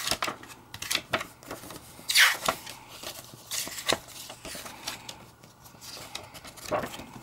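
Hands handling a plastic DVD case and leafing through its paper inserts: scattered clicks and paper rustles, the loudest rustle about two seconds in.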